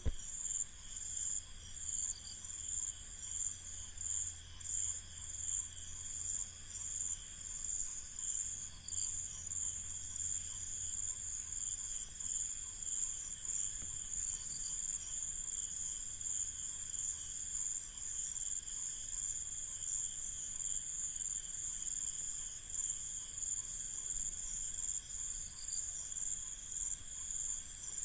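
Crickets chirping steadily in a night ambience, several high trills layered together, one of them pulsing a few times a second.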